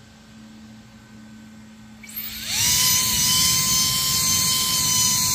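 3D-printed 20 mm electric ducted fan spooling up about two seconds in, its pitch rising quickly, then running at a steady, high-pitched whine with a loud rush of air.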